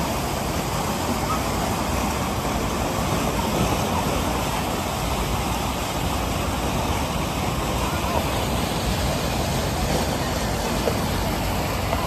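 Steady rush of churning water in a river rapids ride channel, with faint voices.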